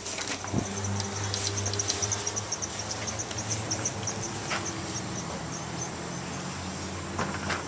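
Night insects chirping in a fast, even pulse of about five chirps a second, over a continuous high trill, with a low steady hum beneath and a few soft knocks.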